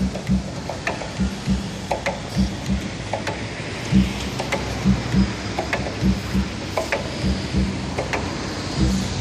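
Cello played percussively in short, irregular low plucked notes and taps, a few a second.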